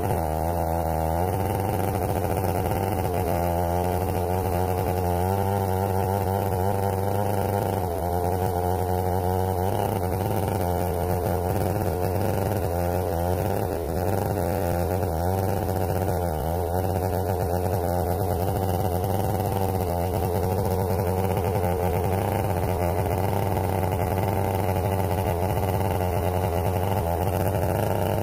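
Stihl 070 two-stroke chainsaw running steadily under load, its bar ripping lengthwise through a black walnut log in an Alaskan chainsaw mill.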